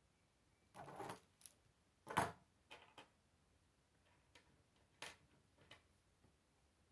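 Plastic K'nex parts clicking and knocking against a wooden tabletop as a model chassis is handled and moved: a short scraping rattle about a second in, one sharper knock just after two seconds, then a few smaller clicks.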